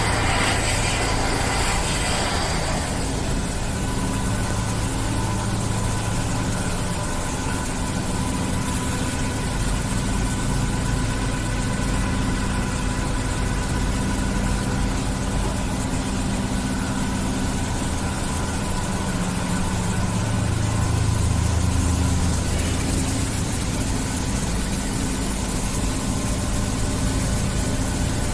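Steady machinery hum, engine-like and low, with a few faint steady tones above it. A spraying hiss at the start cuts off after about two and a half seconds.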